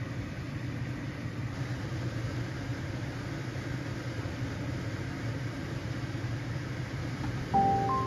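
A steady low hum of kitchen background noise with no distinct knocks or strokes. Near the end, music with a bright mallet-like melody comes in.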